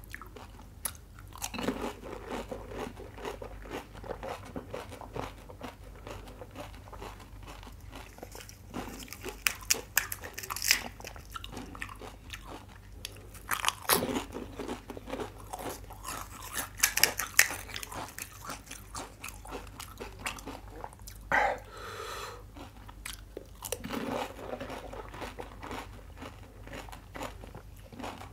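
Close-up crunching and chewing of pani puri: crisp hollow puri shells cracking between the teeth amid steady mouth sounds, with several louder crunches.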